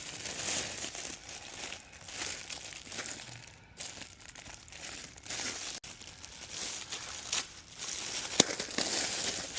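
Plastic packaging crinkling and rustling as an item is unwrapped by hand, with a sharp click about eight seconds in.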